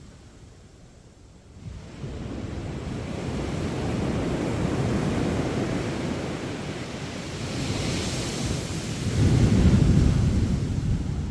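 Sea waves washing onto a sandy beach. After a brief lull the surf builds, and a louder wave breaks near the end with a deep rush, with some wind on the microphone.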